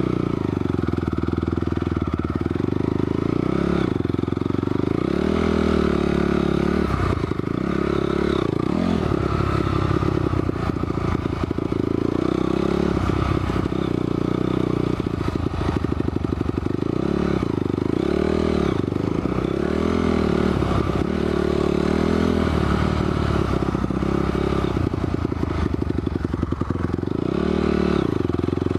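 Honda CRF250R dirt bike's single-cylinder four-stroke engine revving up and falling back again and again as the bike is ridden.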